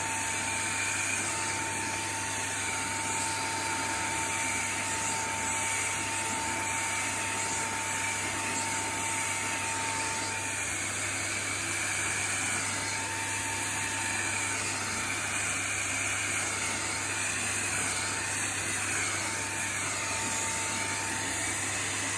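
Handheld vacuum cleaner running steadily as its hose nozzle is drawn through a cat's fur to groom it. It makes a continuous whine whose higher tones waver up and down.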